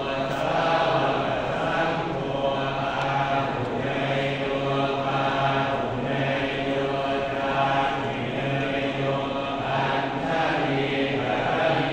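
Thai Buddhist monks chanting Pali verses in unison, droning on one low, steady pitch with short breaks for breath, as the consecration chant (plook sek) over amulets.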